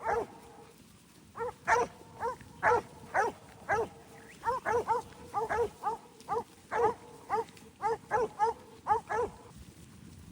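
Working sheepdog barking over and over, about twenty sharp barks at roughly two a second, the dog driving the stock forward; the barking stops near the end.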